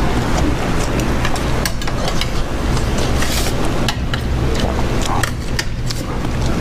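Eating sounds: metal chopsticks clicking against a stainless steel rice bowl, with chewing, over a steady low mechanical hum.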